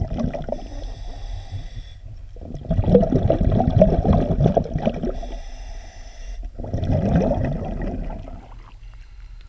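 Air bubbling out of a diver's surface-supplied Jack Browne diving rig, heard with the microphone underwater: a low bubbling rumble in three bursts, the longest and loudest in the middle, dying away near the end.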